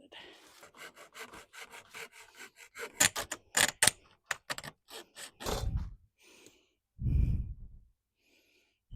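Hand saw cutting a window-screen frame piece to length in quick back-and-forth strokes, followed by two dull knocks.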